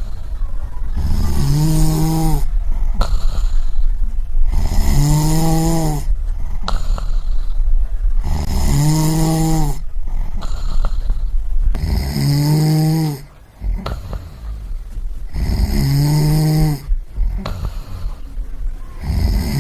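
Snoring: a deep, pitched snore on each breath, repeating about every three and a half seconds, about six times, over a steady low rumble.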